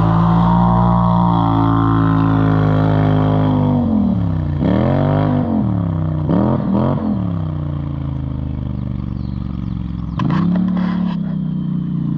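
Polaris Sportsman 1000 ATV engine running: steady for the first few seconds, then its pitch rises and falls several times between about four and seven seconds in as the throttle is worked, and rises again about ten seconds in, with a few short knocks around then.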